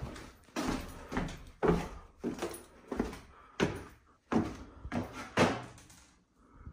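A series of about a dozen irregular knocks and bangs, each with a short ringing tail.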